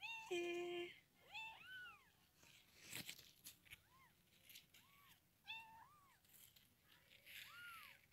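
A mother cat gives one long meow, the loudest sound, at the start. Many short, high mews follow, each rising and falling in pitch, typical of newborn kittens. There is a brief rustle about three seconds in.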